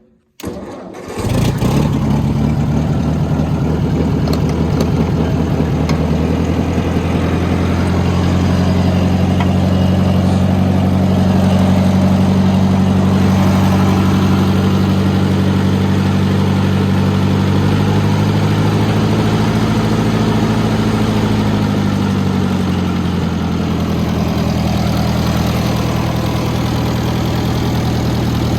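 A 1960 Ford 600 tractor's four-cylinder gasoline engine, started on the starter button with a little choke, catches within about a second and settles into a steady idle. Its speed rises slightly a few seconds in and eases back down near the end.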